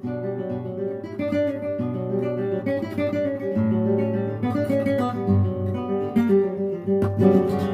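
Background music led by acoustic guitar, with strummed and plucked notes over a steady bass line.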